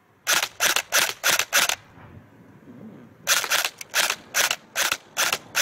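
LCT LTS AK-pattern airsoft electric rifle firing 0.25 g BBs in single-shot mode, each shot a short sharp crack. There are five quick shots, a pause of about a second and a half, then about seven more.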